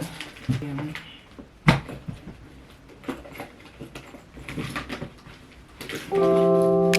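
Belongings being put away in a small room: scattered knocks and clicks of things set down and cupboards or drawers handled, with one sharp knock about two seconds in. Background music with held notes starts loudly near the end.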